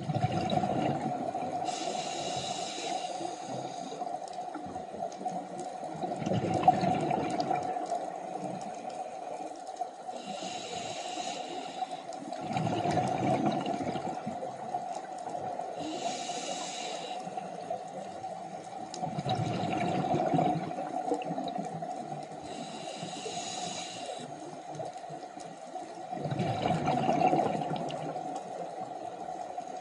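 Scuba diver breathing through a regulator underwater: a hiss on each inhale alternates with a burble of exhaled bubbles, one breath about every six to seven seconds, over a steady hum.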